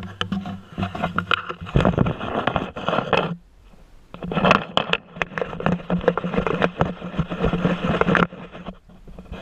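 Dry brush and twigs scraping and crackling against clothing as a person pushes through a thicket on foot. It comes in two stretches, with a short pause a little after three seconds in.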